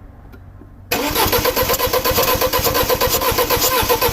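2006 Audi A4 2.0T FSI four-cylinder engine being cranked over by the starter. It starts suddenly about a second in and carries on as a loud, steady, rapid pulsing. The cranking is part of diagnosing a misfire that the mechanic traces to a leaking valve.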